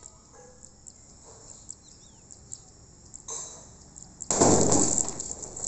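A bullet bomb firecracker, set off by current from a battery, goes off with a loud bang about four seconds in, its noise trailing away over about a second.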